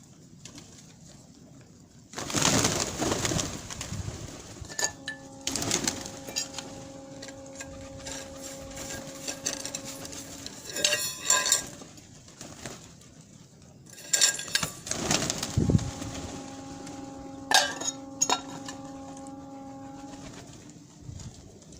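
Pigeons cooing, with several louder bursts of rustling noise. Twice a steady low hum with overtones holds for about five seconds.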